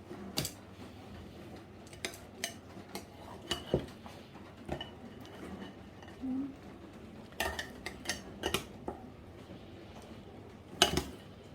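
Kitchenware being handled: scattered clinks and knocks of utensils against a dish, a few with a short metallic ring, and a cluster of clatters with the loudest knock near the end.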